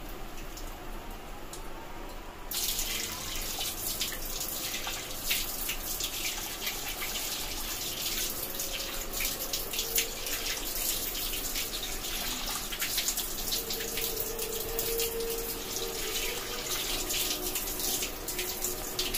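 Tap water running into a sink, with splashes as hands rinse lather off a face. The rush of water grows much stronger about two and a half seconds in.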